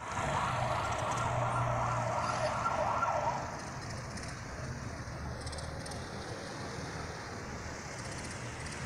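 Vehicle engine and road noise with a steady low hum, as heard from inside a car. A louder rushing noise sits over it for the first three seconds or so, then stops.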